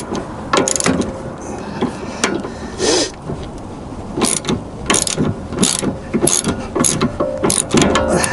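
Hand ratchet wrench clicking in irregular short strokes, mixed with metal clinks of tools and parts, as a sway bar end-link nut is run down by hand.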